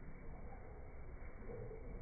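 Steady, muffled low background noise with no distinct clicks or calls.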